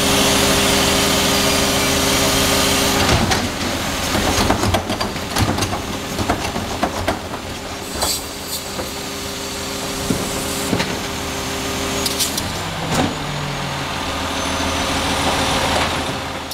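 A Heil Multitask SL garbage truck's engine running while its hydraulic cart tipper lifts a plastic residential cart, tips it over the hopper and lowers it again. Clanks and bangs come as the cart is shaken out, most of them around the middle, with wind on the microphone.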